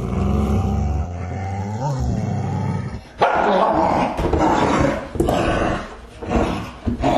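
Angry dogs growling low and steady, then breaking into loud, irregular barking about three seconds in.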